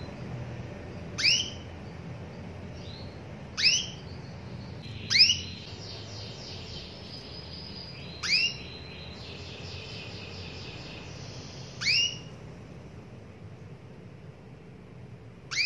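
Female domestic canary giving short, sharply upslurred call notes, six of them spaced a few seconds apart. This is the hen's call to a male, used to coax a silent cock canary into song.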